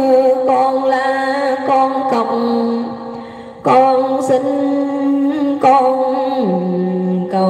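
A woman's voice chanting a Vietnamese poem in long, drawn-out sung notes, a few held phrases one after another, stepping down to a lower held note near the end.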